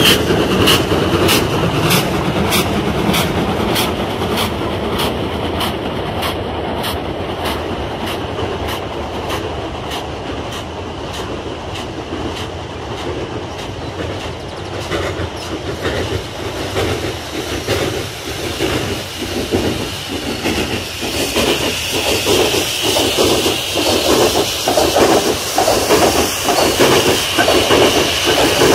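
Steam locomotive running: a regular clicking of wheels over rail joints, about twice a second, fades out over the first few seconds. It is followed by a steady beat of exhaust, with a hiss of steam joining about two thirds of the way in.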